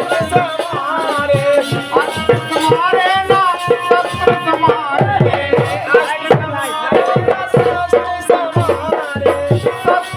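Bundeli rai folk music: a bending melody line over quick, dense hand-drum strokes and rattling percussion.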